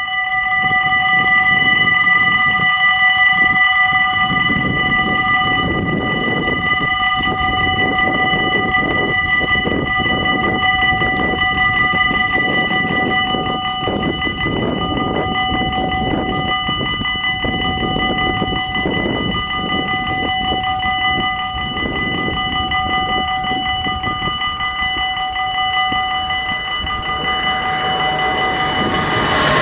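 Dutch level-crossing warning bells ringing steadily as the half-barriers close for an oncoming train. Near the end the noise of the approaching train rises beneath them.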